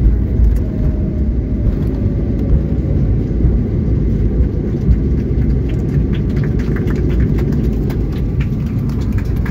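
Steady low rumble of a vehicle in motion, with faint light clicks and rattles in the second half.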